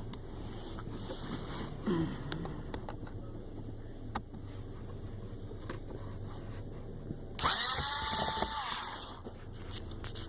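A cordless drill/driver backing out small screws: a brief spin-up about two seconds in, then a louder run of about a second and a half near the end, its whine rising and then holding steady. A low steady hum runs underneath.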